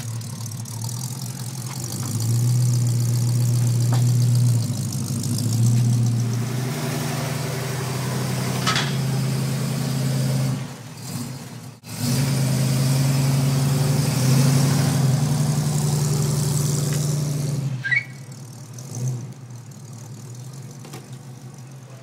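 1969 Mustang's 302 V8 running at low speed as the car is driven down the ramps off a car-carrier trailer, the revs stepping up and down a few times. The engine sound cuts off near the end, leaving quieter background.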